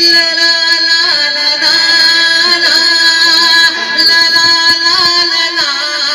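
A man sings a ghazal into a microphone over a loudspeaker, drawing out long notes with bending ornaments rather than clear words.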